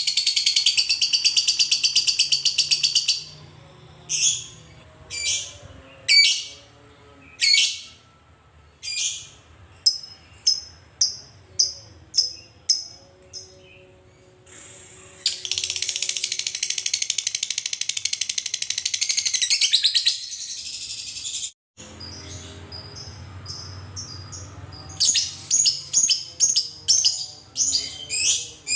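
Fischer's lovebird in 'ngekek' song: a long, very rapid chattering trill, then a run of short sharp chirps that comes faster and faster, a second long trill midway, and another quick series of chirps near the end.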